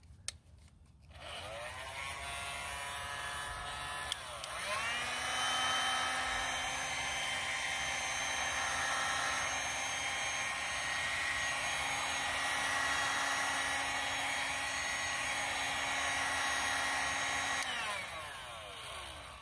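Electric heat gun switched on, its fan motor whining up to speed. About four seconds in it clicks up to a higher setting and runs steady with a higher whine, then is switched off near the end and winds down.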